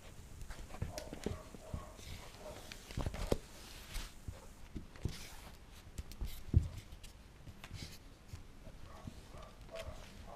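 Welsh corgi puppy tugging on a knotted rope toy: scattered clicks and knocks of its claws and paws on a wooden floor and the rope jerking, with small puppy growls. One louder thump comes about two-thirds of the way in.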